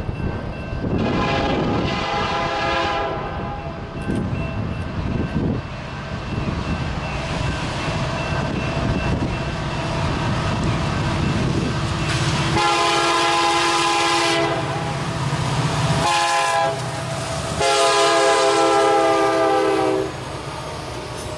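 Diesel freight locomotive's air horn blowing as the train approaches. A fainter blast early on, then a loud long blast, a short one and a long one: the tail of the long-long-short-long grade-crossing signal. Engine rumble and rolling wheels swell underneath as the lead locomotive passes near the end.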